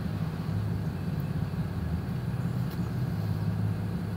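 Parked truck's engine idling with a steady low hum, heard from inside the closed cab while the heater runs.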